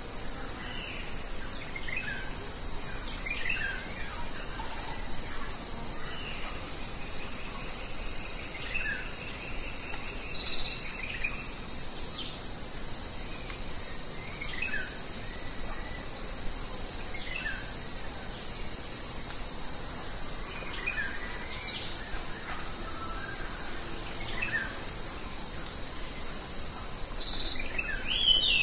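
Outdoor insect chorus trilling in steady high tones, with scattered short bird chirps throughout and a louder run of bird calls near the end.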